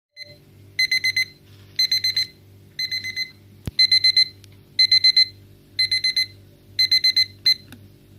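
Kitchen timer alarm going off: short bursts of rapid high-pitched beeps, about once a second, cutting off near the end. A single sharp click comes midway through.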